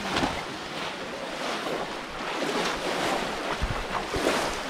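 Shallow muddy pond water splashing and sloshing as people wade and stoop in it, pushing bamboo cone fish traps down into the water, with irregular splashes about once a second.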